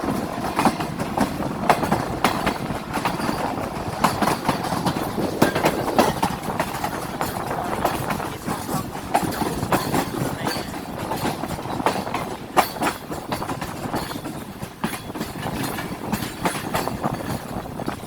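Awam Express passenger train running along the track, wheels clacking over the rail joints amid a steady rumble, with frequent irregular knocks and rattles.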